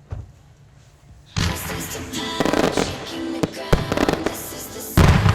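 Fireworks display set to music: a single thump just at the start, then about a second and a half in the music and the fireworks begin together, with sharp bangs and crackles over the music and a heavy burst near the end.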